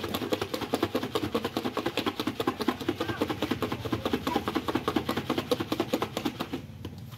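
Fast, even run of sharp knocks or taps, about ten a second, that stops shortly before the end.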